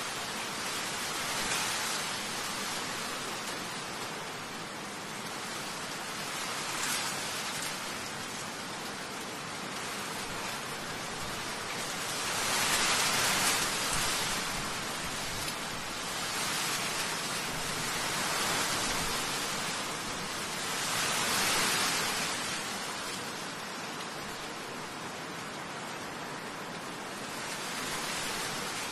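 Storm rain hissing steadily, swelling louder twice, around the middle and again about three-quarters of the way through.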